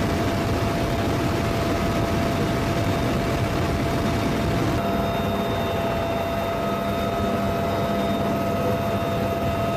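UH-1Y Venom twin-turboshaft helicopter in flight: a loud, steady rotor and engine rush with a constant whine running through it. The tone mix shifts slightly about halfway through. No gunfire is heard.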